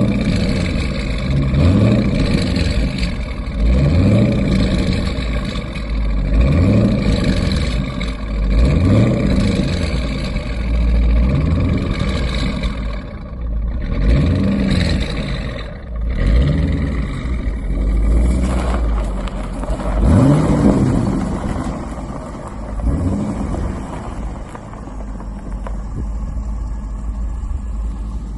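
Corvette C5 Z06's LS6 V8 running through Corsa Extreme mufflers, revving up and dropping back over and over, about every two seconds, as the car is worked free of deep snow. Near the end it settles to a steadier, lower run.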